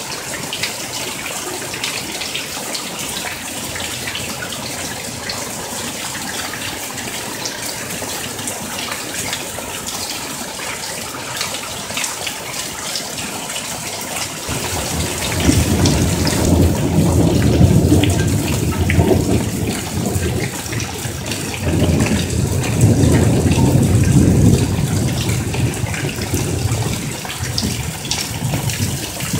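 Heavy monsoon rain: a steady hiss of downpour and runoff pouring off a roof edge onto a concrete patio and a pool. About halfway through, deep rolling thunder comes in two long spells, the loudest part of the sound.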